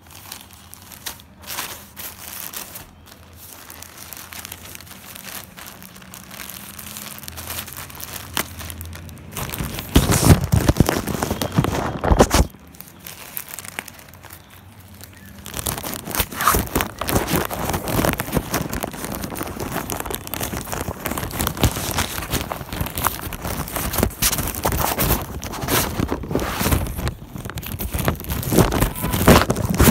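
Plastic courier mailer bag crinkling and crackling as hands handle and pull it open, quieter at first and much louder from about ten seconds in.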